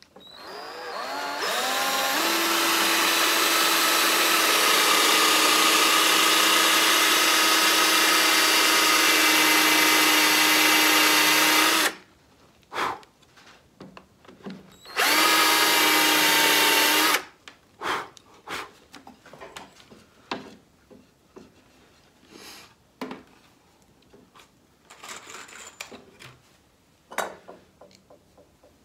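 Cordless drill boring into elm with a Forstner bit: the motor whine climbs in pitch as it spins up, then runs steady for about ten seconds and stops. A few seconds later the drill runs again briefly, followed by light clicks of handling.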